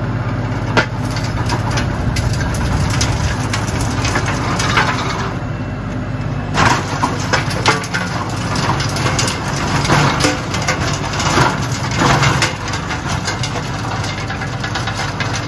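Compact tractor's diesel engine running steadily under load as its rear rototiller churns new ground, with frequent irregular cracks and knocks as the tines chop through roots and stones in the soil.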